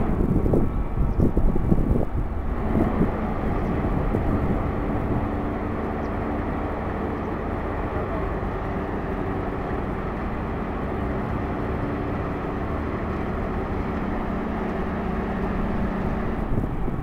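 Small cargo ship's diesel engine running steadily while manoeuvring alongside the quay: a low rumble with a steady multi-tone hum that sets in a few seconds in and fades just before the end. Wind buffets the microphone in the first few seconds.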